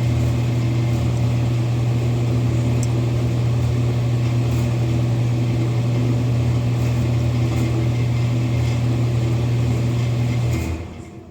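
Furnace running with a loud, steady hum, then shutting off near the end, its sound dying away within about a second.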